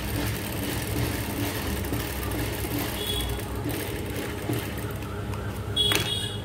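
Industrial sewing machine running steadily as it stitches a seam through cotton fabric. It stops near the end, and a brief sharp rustle follows as the fabric is pulled clear.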